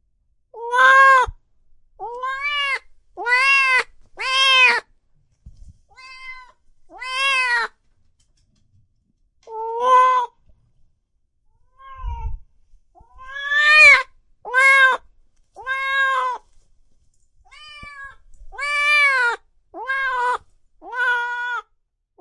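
Domestic cat meowing over and over: about fifteen short meows, each rising and then falling in pitch, a few of them fainter.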